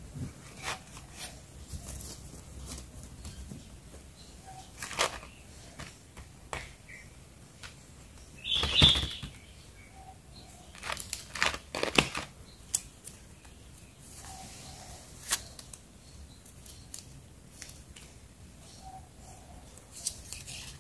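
Clear plastic sticker packs and a thin plastic blister tray being handled: scattered crinkles, light taps and clicks, with a louder burst of crinkling about nine seconds in and a few sharp clicks around eleven to twelve seconds.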